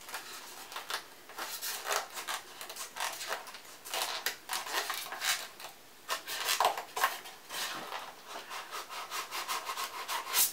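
Cardboard packaging inserts being worked and slid off a microphone: irregular scraping and rubbing strokes, one after another.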